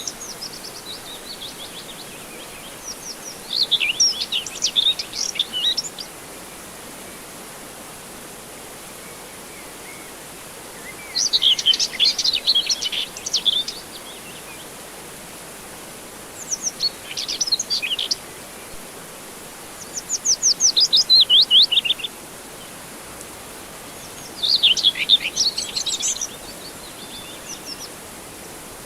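Songbirds singing in short bursts of rapid high chirps, about five phrases with pauses between, one of them a fast, evenly spaced trill. Under them runs a low, steady hiss.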